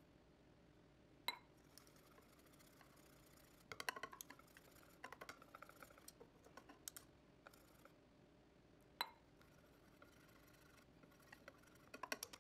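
Wire whisk beating gram-flour batter in a bowl: faint, scattered clicks and taps of the wires against the bowl. There are short quick runs of clicks around four to seven seconds in and again near the end, and sharper single ticks a second in and about nine seconds in.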